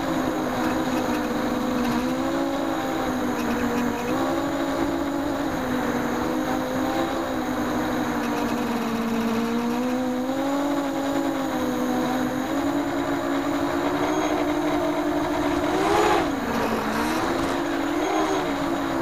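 Brushless motors (DYS 1806) of a mini FPV quadcopter spinning 6x4.5 propellers: a steady whine whose pitch drifts up and down with the throttle. About three seconds before the end it gives a brief surge, jumping up in pitch and loudness and then dipping, before settling again.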